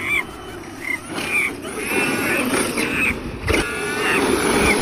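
A monkey giving a series of short, high calls that rise and fall, about one every half second, over a rustling background.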